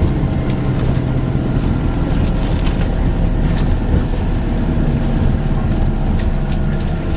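Volvo B5LH hybrid double-deck bus running, a steady low drone broken by scattered sharp knocks and bangs.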